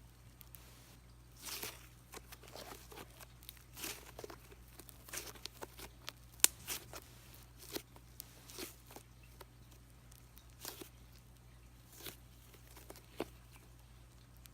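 Thick cream-cheese-textured slime being squished and stretched by hand, giving irregular sticky pops, clicks and soft crackles, with one sharp pop about six and a half seconds in.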